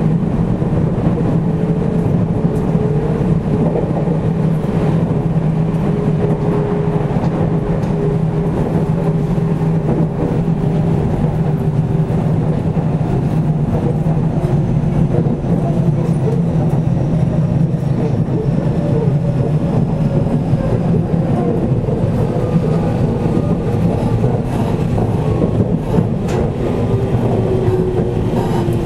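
Interior running noise of a JR Central 313 series 8000-subseries electric train, recorded at the car end of motor car KuMoHa 313-8502: a steady rumble of the train at speed, with faint tones that drift slowly lower in pitch.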